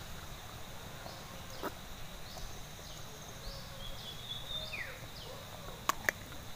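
Low background ambience: small birds chirping now and then over a steady low hum, with a single click early on and two sharp clicks close together near the end.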